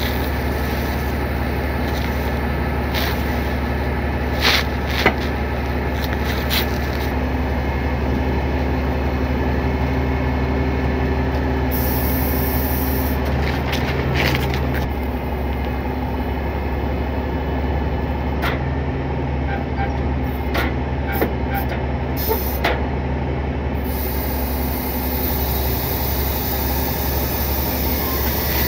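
NRC 40TB wrecker running steadily as its hydraulic underlift is worked to fork and raise a food truck's front end, with the hum's low tone shifting as the lift moves. A few sharp metal clanks from the tow forks being set about four to seven seconds in.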